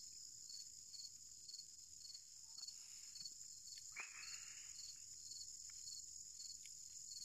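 Crickets chirping steadily, a faint high trill with a regular pulse about twice a second. About four seconds in there is one brief rushing sound.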